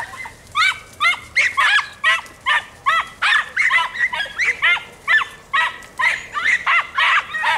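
Several Andalusian podencos (Podenco Andaluz hunting dogs) barking in high, yelping voices, their calls overlapping at about two to three a second without a break: the pack giving tongue as it works a rabbit through the scrub.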